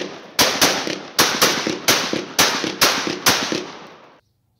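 Semi-automatic shotgun fired rapidly, about six sharp shots roughly two a second, each with a short decaying echo. The sound cuts off abruptly about four seconds in.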